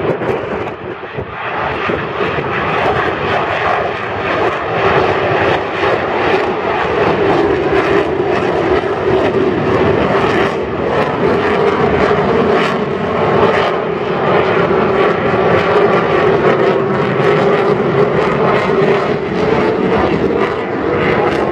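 Blue Angels aircraft making a slow pass, their engines giving a loud, continuous rushing noise with a steady drone that drifts slightly in pitch. The sound builds over the first couple of seconds, then holds.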